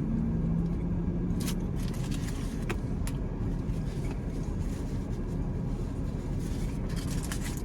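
Steady low rumble of a parked car's engine idling, with a few faint clicks over it.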